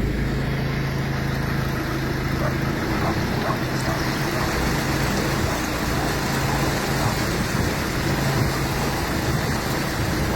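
A vehicle engine running steadily under a constant noise wash.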